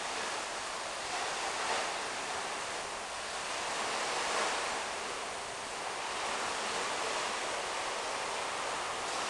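Distant sea surf: a steady rushing hiss that swells and eases a few times.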